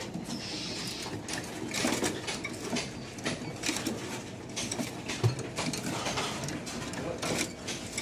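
Caged birds chirping and calling, many short calls overlapping at irregular intervals, over a faint steady low hum.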